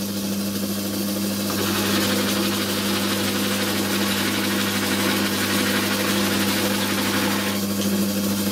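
Small homemade watchmaker's lathe on a test run, its electric motor driving the belt and the screw-cutting change gears. It gives a steady motor hum under a whirring noise, which is louder and fuller from about a second and a half in until near the end.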